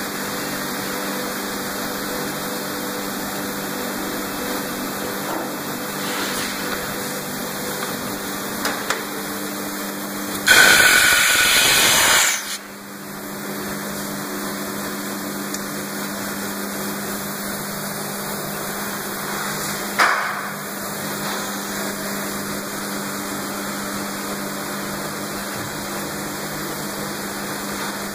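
Blow moulding machine running with a steady hum. About ten seconds in, a loud rush of compressed air lasts about two seconds and cuts off sharply. A shorter, sharp blast of air comes about twenty seconds in.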